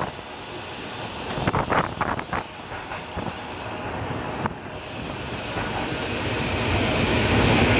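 Heritage tram running along the track, heard from on board: a steady rumble of wheels on rail with wind on the microphone and a few short sharp knocks. It grows steadily louder through the second half as an oncoming tram approaches on the other track.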